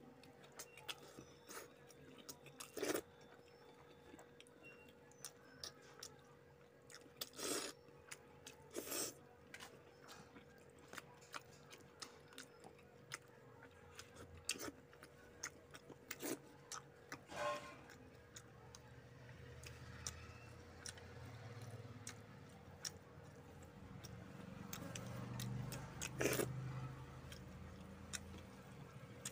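Close-up mukbang eating sounds: chewing, lip smacks and wet mouth clicks as a man eats rice and fish curry by hand, heard as many scattered short clicks over a faint steady hum. A low rumble swells in the second half.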